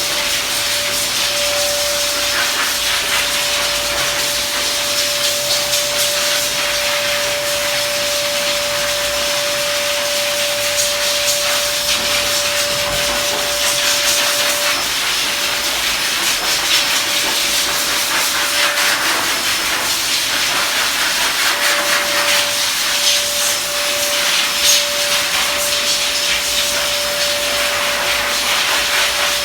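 Pet grooming blow dryer running, a loud steady rush of air with a steady whine through it; the whine drops away for several seconds midway, then returns.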